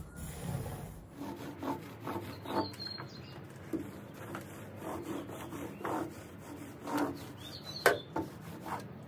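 Mini roller being rolled back and forth over a timber tabletop, laying on hardwax oil: soft rubbing strokes about once a second, with a sharp tap near the end.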